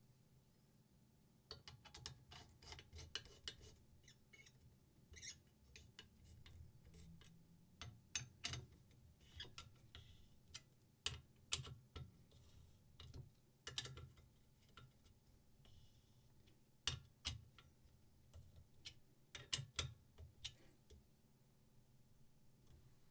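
Faint, scattered clicks and light knocks of a knife sharpening system's parts being handled and adjusted, coming in irregular runs of several a second.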